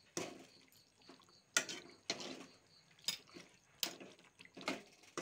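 A metal spoon stirring thick chicken curry in a metal pot, knocking and scraping against the pot about once a second, with wet squelching of the gravy.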